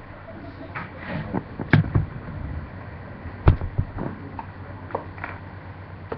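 Knocks and bumps of a webcam being handled and turned, picked up directly by its own microphone. The loudest knocks come about two seconds in and again about three and a half seconds in, with a few lighter taps after, over a steady hum of room noise.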